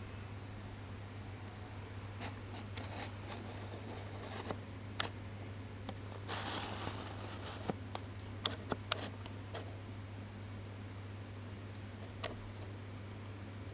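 Aquarium filter's steady low hum, with scattered small sharp clicks and a short rustle about six seconds in.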